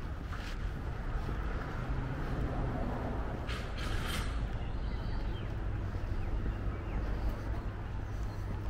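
Outdoor city ambience: a steady low rumble of distant traffic, with a brief hiss about three and a half seconds in.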